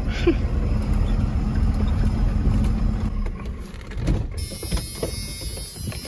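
Old pickup truck's engine and road rumble heard from inside the cab while driving on a dirt track. The steady engine hum drops away about three seconds in, leaving quieter scattered knocks and rattles.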